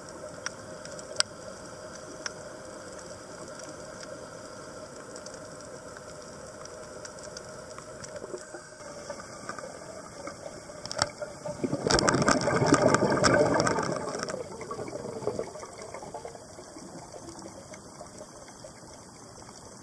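Underwater sound picked up through a camera housing: a steady low hiss with scattered sharp clicks, then about twelve seconds in a scuba diver's exhaled bubbles burbling loudly for about two seconds before fading.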